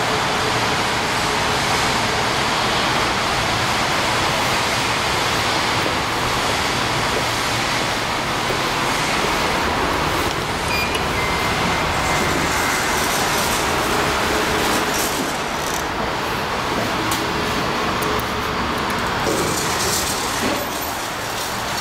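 Large goods elevator car travelling in its shaft, giving a steady rushing hum. A thin high tone sounds for about two seconds around halfway, and a few clicks come near the end.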